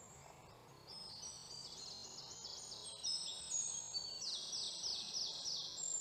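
Birds singing, faint: many high chirping notes overlap from about a second in, with a fast trill of repeated notes a little past the middle.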